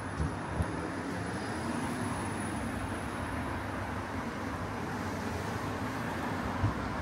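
City street traffic: a steady wash of passing vehicles, with a few brief low thumps, two near the start and one near the end.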